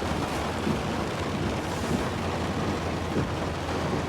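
Pickup truck driving through deep floodwater: a steady low engine hum under a continuous rush of water and rain.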